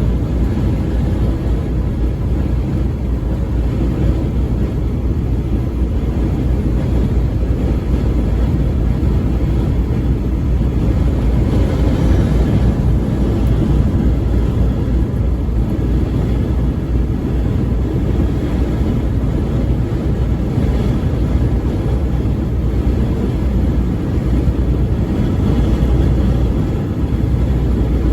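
Semi-truck driving at highway speed: a steady, loud, low rumble of engine and road noise with no horn blast.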